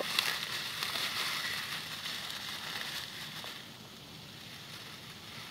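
Dry grass rustling, with small crackles, as hands pack it into a pile of fire tinder. The rustling is loudest at first and dies down after about three and a half seconds.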